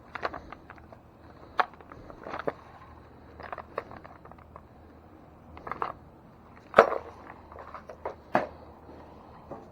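Irregular clicks and light knocks of hand tools, such as Allen wrenches, working on an e-bike, with a sharper knock about seven seconds in.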